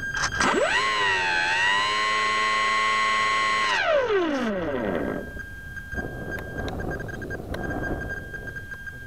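Electric motor and propeller of an E-flite Stryker flying wing spooling up to a steady high whine, held for about three seconds, then throttled back and winding down about four seconds in. Wind rushing over the onboard camera's microphone follows.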